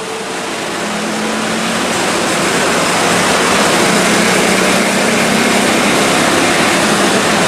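Diesel locomotive of a container freight train approaching, its engine running with a steady hum under a broad, even noise. The sound grows louder over the first few seconds, then holds steady.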